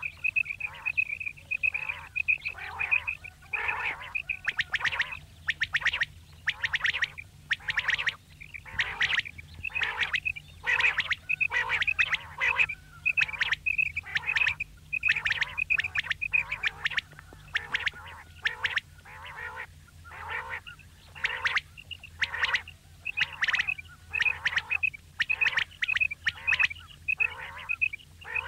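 Female common quail calling over and over: short, quick-pulsed high notes alternating with harsher, raspier notes, several each second with no real pause.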